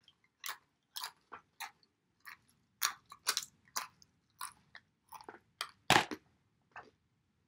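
A person biting into and chewing a crunchy snack: a run of short, sharp crunches, several a second, the loudest about six seconds in.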